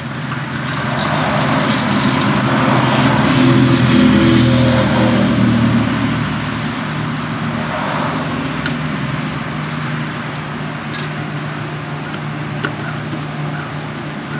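A steady engine hum that grows louder over the first few seconds and then eases off, with a few light clicks.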